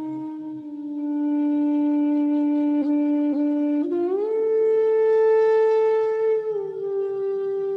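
Instrumental music between sung verses: a single lead instrument holds long, steady notes, gliding up to a higher note about four seconds in and stepping down again near the end.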